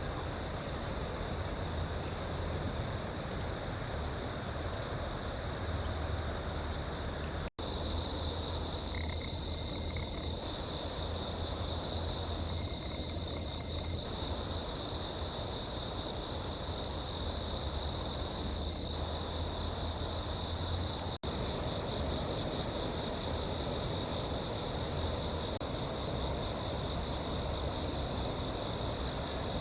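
A steady, high-pitched chorus of insects trilling without a break. The sound cuts out for an instant twice.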